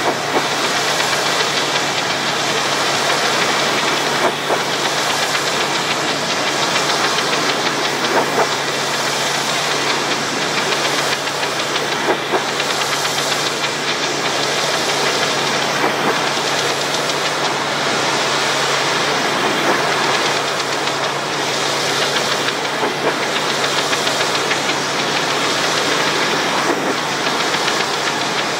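Pressure washer running steadily: an engine hum under the loud hiss of the high-pressure water spray.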